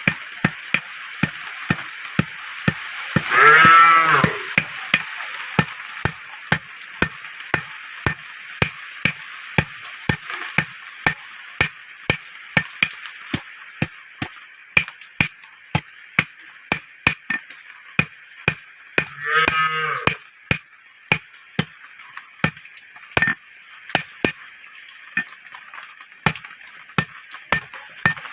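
Hand hammer striking hot iron on an anvil, a steady run of blows about two a second as the rod is drawn out into a sickle blade. A cow moos twice, about three and a half seconds in and again near twenty seconds.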